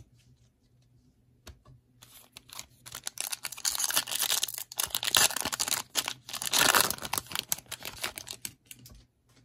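Foil wrapper of a Panini Prizm trading-card pack being torn open and crinkled by hand: a dense crackling rustle that starts about two seconds in, swells twice, and fades near the end.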